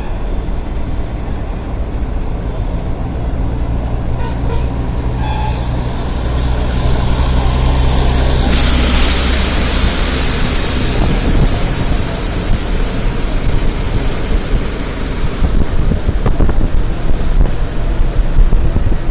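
Road traffic noise: a vehicle engine running with a steady low hum. About halfway in, a sudden loud hiss sets in and fades over a few seconds.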